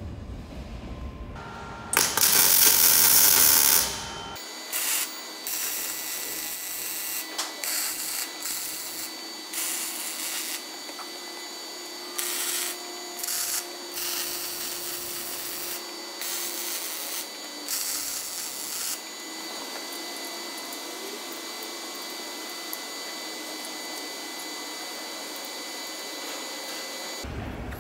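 Welding in the workshop: short crackling runs of about a second each, stopping and starting, over a steady high-pitched whine. A louder harsh burst of noise lasts about two seconds, starting about two seconds in.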